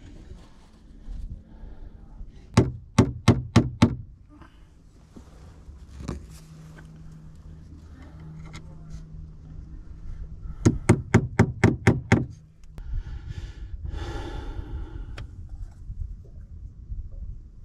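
Hammer striking into the wooden floor joists in two quick runs of sharp knocks, about five blows a second. The first run of five comes a few seconds in and the second, of about seven, past the middle. A breathy grunt follows the second run.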